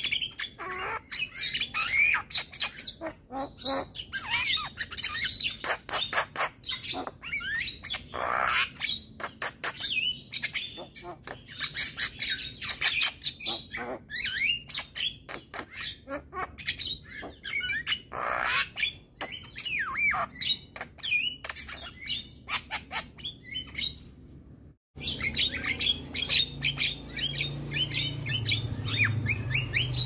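Male Javan myna singing a fast, varied stream of chattering clicks, whistled glides and harsh squawks. The song breaks off for a moment near the end, then carries on.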